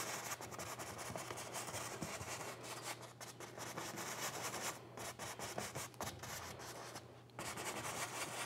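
Flat paintbrush rubbing oil paint onto a stretched canvas in short swirling strokes, a run of quick scrubbing passes that stop briefly about five and seven seconds in.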